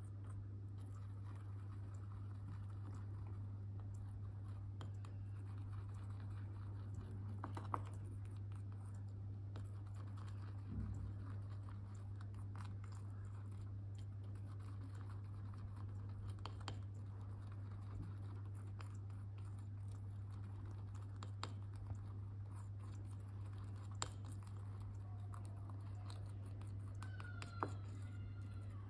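Small metal spatula stirring and scraping a paste of clay powder and urushi lacquer in a small ceramic dish: faint scratching with a few light clicks, over a steady low hum.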